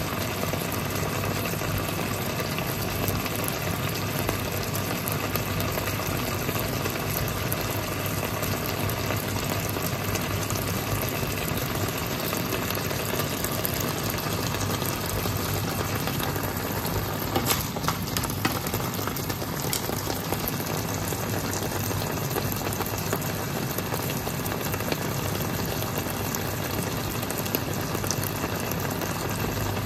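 Chilli-paste sauce bubbling and sizzling in a pan of stir-fried clams and basil: a steady crackling simmer over a low hum, with a few sharper pops a little past halfway.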